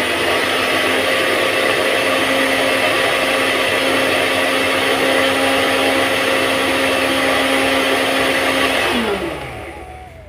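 Electric mixer grinder running at speed with a steady motor whine, then switched off about nine seconds in, its pitch falling as the motor spins down.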